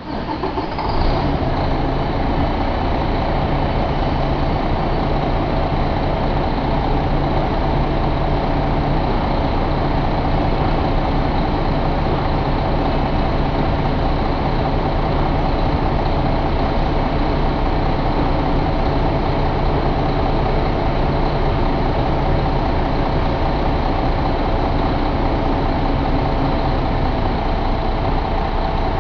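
2012 International MaxxForce 13 inline-six diesel engine idling steadily.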